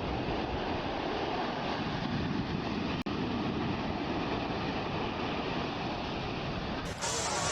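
Steady rush of sea waves with wind buffeting the microphone. The sound cuts out for an instant about three seconds in.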